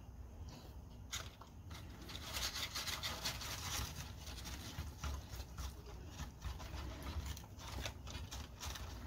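Crumpled paper balls crinkling and rustling, with scrapes and knocks against a metal muffin tin, as a dog noses them aside hunting for treats. The rustling is busiest a couple of seconds in.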